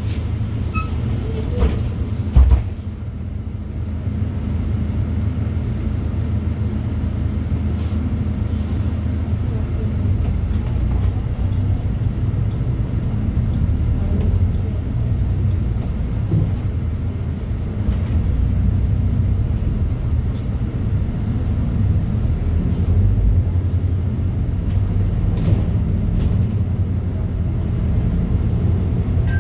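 City bus driving along, heard from inside the passenger cabin: a steady low engine and road rumble. About two seconds in there is a short, loud hiss of air.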